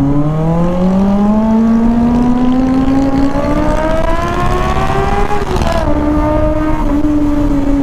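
Kawasaki ZX-25R's 250cc inline-four engine climbing steadily in revs under acceleration for about five seconds. The revs then drop sharply as it changes up a gear, and it settles into a steady, slowly falling note.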